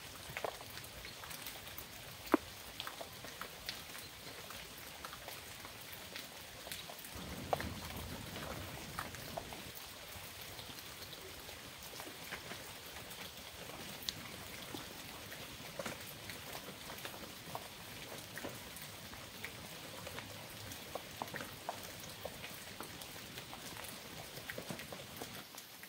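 Steady rain falling, with many individual drops striking close by as scattered sharp ticks. A low rumble swells for a couple of seconds about seven seconds in.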